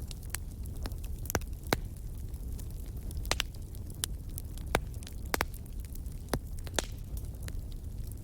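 Wood campfire crackling, with irregular sharp pops, a few of them loud, over a steady low rumble.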